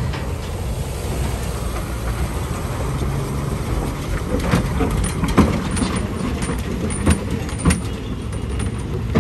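Loaded heavy truck's diesel engine running low and steady as the truck crawls through deep mud ruts. Several sharp knocks and clanks break in over the last half.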